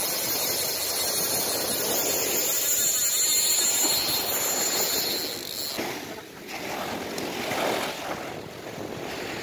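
Sea surf breaking and washing up the sand: a steady rushing that dips briefly about six seconds in.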